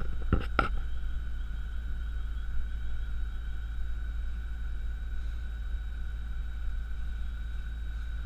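Fire engine running at the scene with its pump supplying a hose line: a steady low rumble with a steady high whine over it, and a few sharp knocks just after the start.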